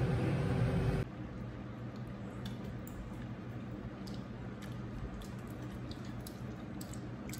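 Food in a wok being stirred on a portable gas stove for about a second, cutting off abruptly; then quiet eating, with faint chewing and scattered small clicks of a metal spoon and chopsticks.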